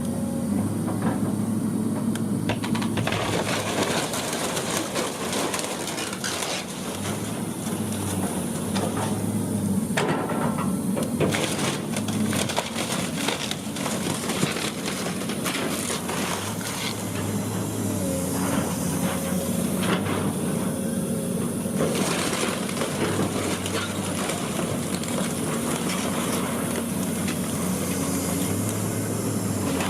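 The engine of heavy demolition machinery runs throughout, its pitch stepping up and down under load. Over it come repeated crunching and cracking of wood and debris as the building is torn down.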